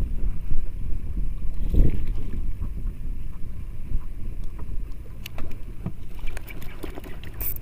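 Wind buffeting the microphone out on open water, a gusty low rumble that rises and falls. In the second half come a few light clicks and a brief high hiss.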